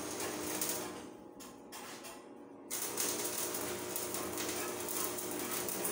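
Electric arc welding on a steel staircase frame: the arc crackles and hisses, breaking off briefly twice in the first three seconds, then running steadily.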